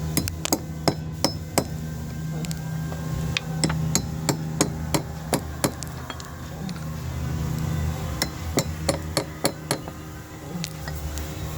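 Caulking mallet striking a caulking iron to drive caulking into a wooden boat's plank seams. Sharp taps come in runs of about two a second, with short pauses between the runs, over a steady low hum.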